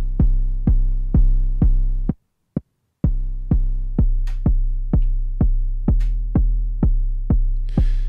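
Melbourne Instruments Nina synthesizer's kick drum patch playing a steady four-on-the-floor pattern of about two kicks a second, each with a long low tail. Its tone shifts as the synth's knobs are turned. The kicks drop out for about a second a couple of seconds in, with one lone hit in the gap.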